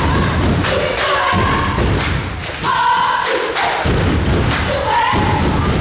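Basketball thudding on a hardwood gym floor in irregular thumps, under spectators shouting and cheering.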